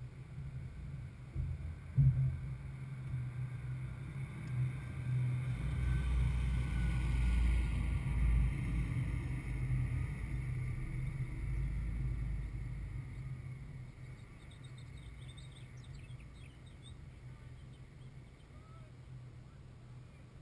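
A low rumble that swells over several seconds, then fades, with a single thump about two seconds in.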